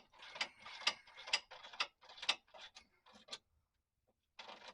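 Ratchet wrench clicking in quick short runs as nuts are run onto the transmission crossmember bolts. It pauses about three and a half seconds in and starts again near the end.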